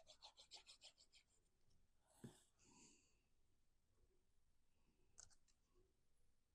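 Near silence with faint handling of cardstock: a quick run of light ticks in the first second, then a few soft rustles and a single click about five seconds in.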